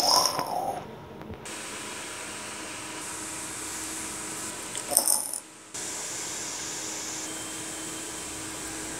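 Steady background hiss, broken by two short louder sounds, one right at the start and one about five seconds in.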